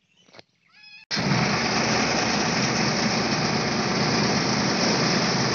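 Six-wheeler truck's diesel engine running steadily, heard loud from inside the cab, cutting in abruptly about a second in.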